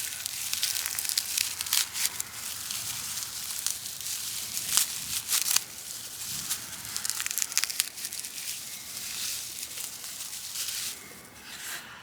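Dry grass and plant stalks being crushed, rubbed and torn apart by hand: a continuous dry crackling and rustling with sharper snaps and tears throughout.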